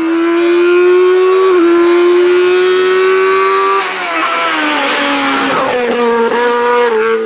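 High-revving 1.6-litre naturally aspirated engine of a VW Scirocco Mk1 hillclimb car, screaming at high revs. The note climbs, dips with a gearchange about a second and a half in, and climbs again. From about four seconds in it falls away and settles into a lower steady note.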